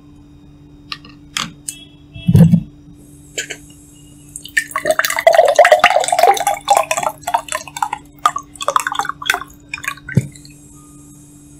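Ice cubes clinking in a glass with liquid splashing and dripping over them. A few scattered clinks and taps come first, then a dense run of splashy clinking lasts about three seconds in the middle.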